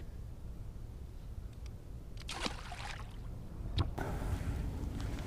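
Water lapping against a small fishing boat under a steady low rumble, with a brief rushing swish a little past two seconds in and a sharp click near four seconds.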